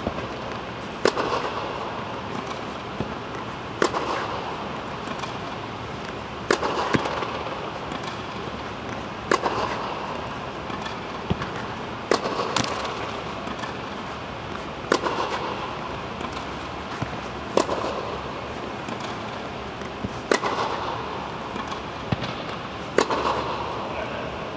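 Tennis ball struck by a racket in a steady rally on a clay court, a sharp pop every two to three seconds, most of them paired with the ball's bounce a moment earlier. Each hit echoes briefly in the indoor hall.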